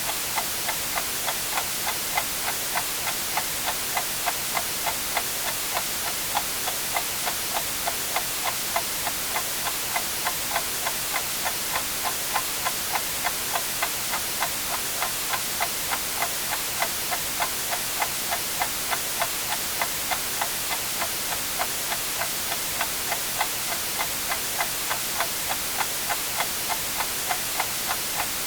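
Clock ticking at a steady, even pace over continuous white noise, a bright even hiss.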